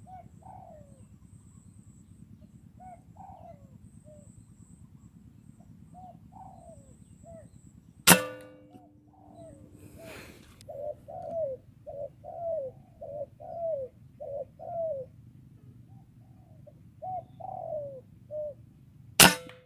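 Spotted doves cooing in phrases of short falling notes, in a quick run of notes from about eleven to fifteen seconds in. Two sharp air-rifle shots cut through, one about eight seconds in and one near the end.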